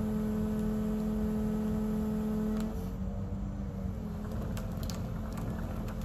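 Excavator's diesel engine and hydraulics running under load with a steady whine, which drops slightly in pitch and level a little under three seconds in.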